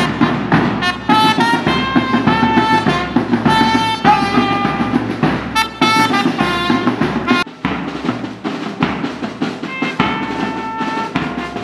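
Music: a brass melody of held notes over a drum beat, with a short break about seven and a half seconds in.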